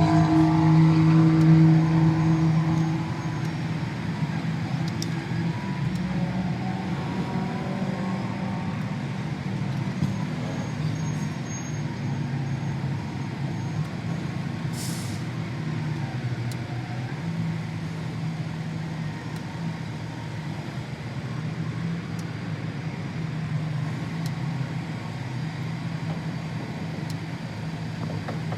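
Steady low drone of an idling motor engine, louder for the first few seconds and then even.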